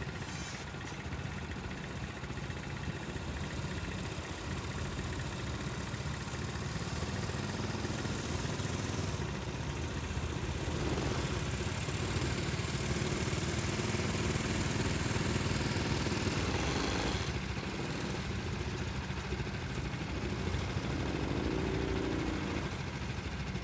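Several go-kart engines running as a line of karts moves through a corner, the engine noise building to its loudest in the middle and dropping back about three-quarters of the way through.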